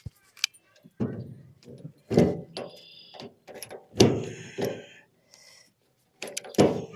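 Wheelbarrow parts being knocked and shifted while it is taken apart: about half a dozen separate clanks and knocks, some with a short metallic ring.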